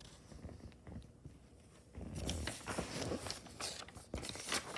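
Phone handling noise: the phone's microphone rubbing and scuffing against clothing. Quiet for about two seconds, then irregular rustling with scattered clicks.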